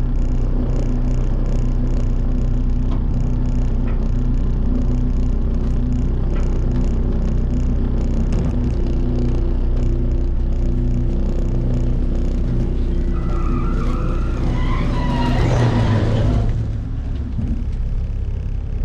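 Heavy earthmoving machine's engine running steadily, with a short burst of rattling and squeaks about fifteen seconds in.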